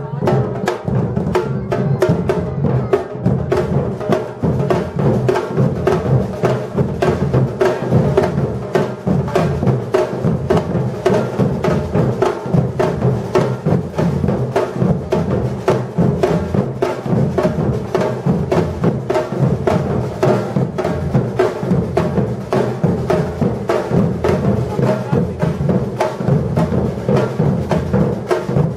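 Batucada drum ensemble playing a steady, dense rhythm: deep surdo bass drums under rapid, sharp strokes of the higher drums, without a break.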